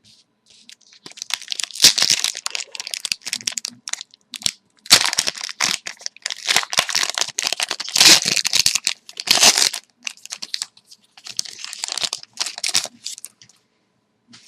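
Foil wrapper of a hockey card pack crinkling and crackling as it is torn open and handled, in uneven bursts with short pauses.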